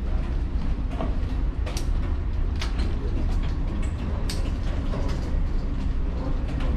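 Steady low rumble inside a ship's passageway, with scattered knocks and clicks of an armed boarding team's gear and boots as they move through.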